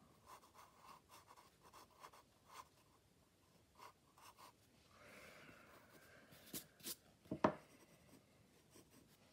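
Graphite pencil scratching faintly across sketchbook paper in short drawing strokes, with a longer stretch of shading about five seconds in. A few sharper taps come about seven seconds in.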